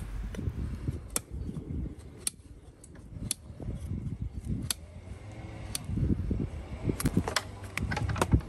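Farrier's steel hand tools clinking against a horse's steel shoe and nails: about eight sharp metallic clicks and taps at irregular intervals, over a low steady background rumble.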